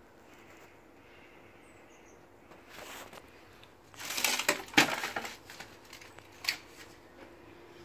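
Red plastic crate being lifted and shifted on a concrete floor: a short rustle, then about four seconds in a second of loud clattering scrapes and knocks, and one sharp knock near the end.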